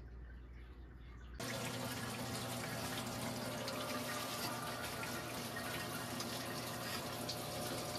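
A faint low hum, then about a second and a half in, the steady running and trickling of water starts: water circulating down through an indoor vertical hydroponic tower growing lettuce, with a low steady hum underneath.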